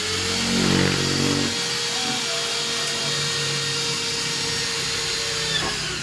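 A steady, loud hiss from shop equipment, with a low hum in the first second and a half, cutting off abruptly near the end.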